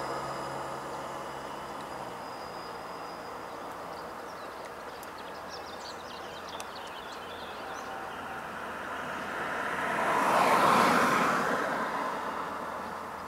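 A vehicle passing: the whoosh of its road noise swells to a peak about ten seconds in, then fades away. At the start, the noise of an earlier vehicle is still dying away.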